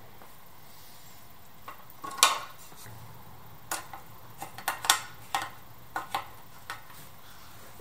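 Irregular metallic clicks and clinks of a screwdriver driving a screw into a motorcycle's license plate holder, about a dozen sharp taps, the loudest about two seconds in and again near five seconds.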